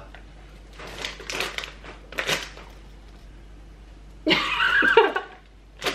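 Plastic snack bag rustling as it is handled at the opening, in a few short bursts, then a brief vocal sound a little over four seconds in.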